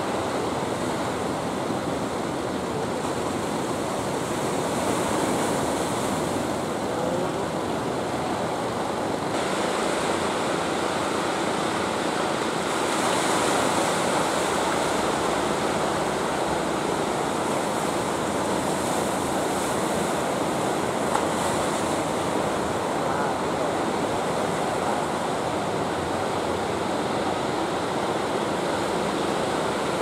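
Heavy surf breaking on a beach: a continuous loud rush of waves that swells about five seconds in and again around thirteen seconds.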